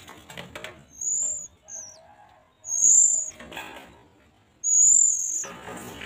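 Oriental magpie-robin nestlings begging: three thin, high-pitched calls about two seconds apart, the last held about half a second, with scratchy rustling in the nest between them.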